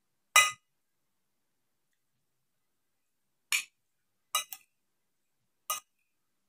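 Metal cutlery clinking against a ceramic plate of rice five times, the first clink the loudest, then three in quick succession and one more near the end.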